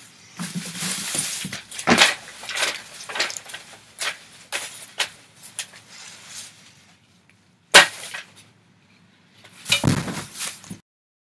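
Dry grass rustling and crackling as it is handled by hand, in irregular bursts, with a single sharp knock about eight seconds in.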